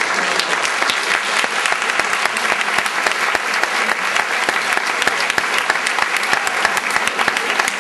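Audience applauding, many hands clapping in a steady, continuous ovation.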